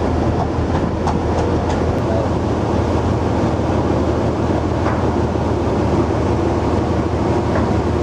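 Steady low drone of a cargo ship's engine and machinery running, with a constant wash of wind and sea noise over it.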